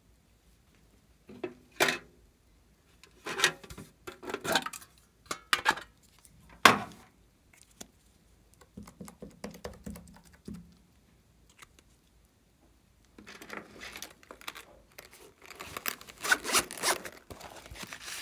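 Small craft items being handled, with rustling and scraping and one sharp click about a third of the way in. Near the end comes a run of rasping strokes as the zipper of a hard-shell glitter pencil case is pulled open.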